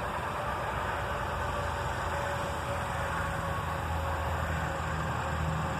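A steady low mechanical hum, like an idling engine or motor running close by, over a broad steady hiss. The hum grows a little stronger about three seconds in.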